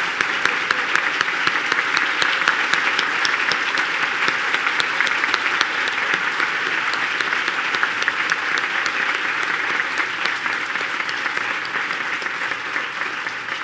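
Audience applauding: a dense, steady clatter of many hands clapping, easing off slightly near the end.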